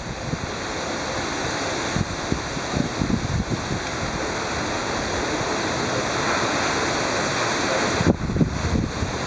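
Heavy rain pouring down in a severe thunderstorm, a steady loud hiss, with wind buffeting the microphone in low thumps a couple of seconds in and again near the end.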